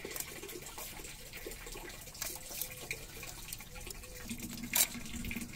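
Large kitchen knife cutting along a snapper's backbone: faint scrapes and ticks of the blade on bone, with one sharp click near the end, over a steady wash of running water.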